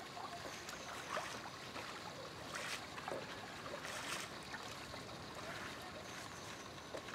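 Wooden paddles dipping and splashing in calm water alongside a dugout canoe, a stroke every second or so over a faint steady hiss.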